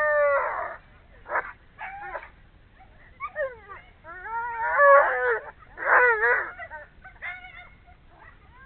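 Alaskan Malamute yowling and whining in about seven short, howl-like calls with sliding, wavering pitch, the loudest a little past the middle; excited vocalizing while held back in harness before a run.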